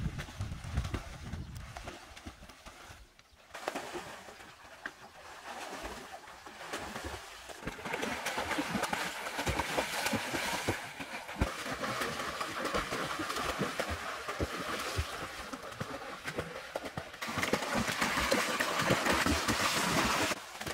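Water splashing and churning as people swim through a pool. The splashing builds from about eight seconds in and is loudest near the end.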